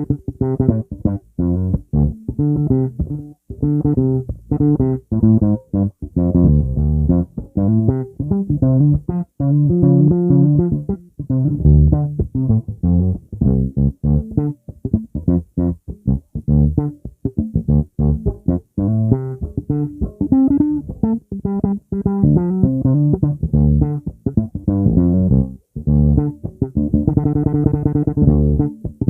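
Epiphone Thunderbird electric bass on its neck pickup, played solo and recorded direct through an interface. It plays a busy line of short plucked notes, with a fast run of repeated notes near the end.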